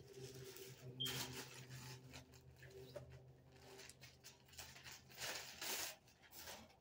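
Thin plastic mailer bag rustling and crinkling as a garment is handled and pulled out of it, in a few bursts, the loudest about five seconds in.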